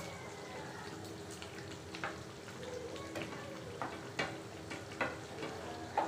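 Thick tomato gravy sizzling and bubbling in a metal karahi over a gas flame. From about two seconds in, a spatula clicks and scrapes several times against a plate and the pan as fried chicken pieces are pushed into the gravy.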